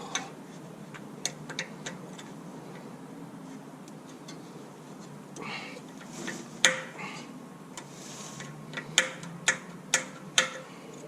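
Sharp metal clicks and taps of tools against a brake caliper and pads as stuck brake pads are worked loose: a few within the first two seconds, a loud one just past the middle, and four in quick succession near the end, some with a short ring.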